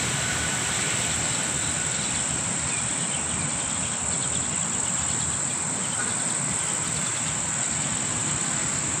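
Loud, steady, high-pitched drone of insects.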